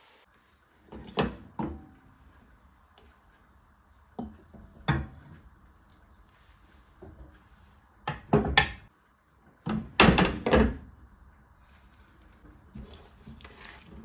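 Cookware and utensils knocking against a pot on the stove: a pair of sharp clatters about a second in, one near five seconds, and a louder run of knocks from about eight to eleven seconds in.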